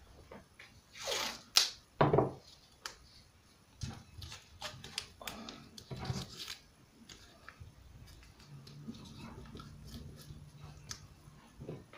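Masking tape being pulled off the roll and torn, a few short rips in the first two seconds or so, then quieter taps and rustles of hands pressing the tape around a plastic bulb holder.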